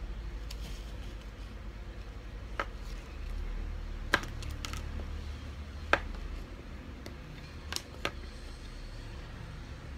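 Small plastic building-block pieces clicking and tapping against each other and the wooden surface as they are handled: about six sharp, separate clicks, over a steady low rumble.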